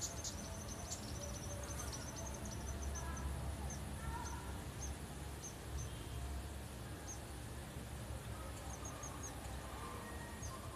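Short, high-pitched animal chirps: a quick run of them in the first two seconds, then single chirps every second or so, and a quick run of four near the end, over a steady low rumble.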